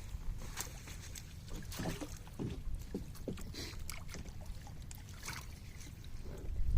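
Small boat on water: scattered splashes and knocks over a steady low rumble.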